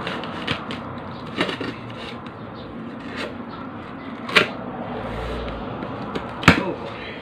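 Products and cardboard packaging being handled: a string of knocks and clicks, the loudest about four and a half and six and a half seconds in, over steady background noise.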